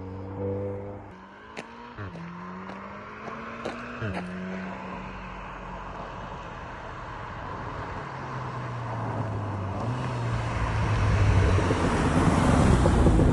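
Stock VW Golf R's turbocharged four-cylinder engine and exhaust: the revs rise and fall a few times, with a few short sharp clicks. The engine then settles to a lower, steadier note and pulls harder, growing louder with a rising rush of noise near the end.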